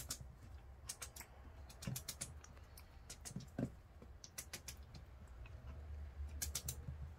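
A small puppy's claws clicking and tapping irregularly on a hardwood floor as it scampers about.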